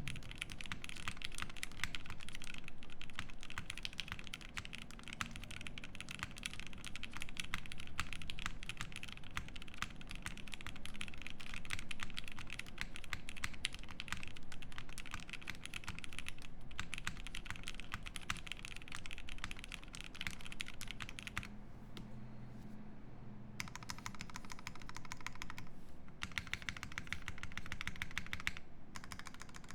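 Fast, continuous typing on a Prophet mechanical keyboard with lubed FFFF switches in Cherry top housings, a nylon plate and GMK keycaps: a dense stream of key-press clicks. The typing breaks off briefly about 21 seconds in, then resumes.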